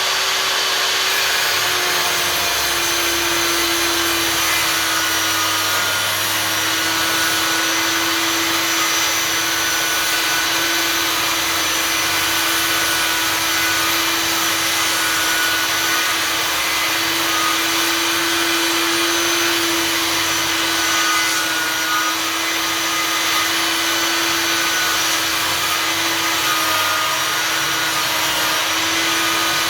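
Einhell table saw running and ripping a board, a loud steady motor whine with the hiss of the blade in wood; the pitch drops slightly about two seconds in and holds lower as the blade takes the cut.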